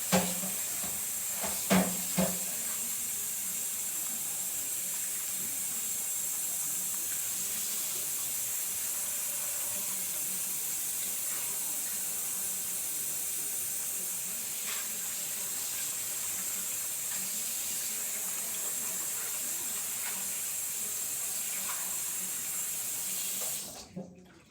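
A steady hiss of steam or water in a kitchen during cooking, strongest in the high frequencies. It stops suddenly near the end, and a few sharp knocks come in about two seconds in.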